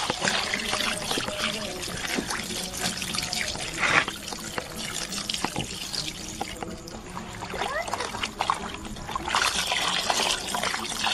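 Water pouring and splashing over raw chicken pieces in a metal wok as hands rub and wash the meat, a steady trickling and sloshing with louder splashes about four seconds in and near the end.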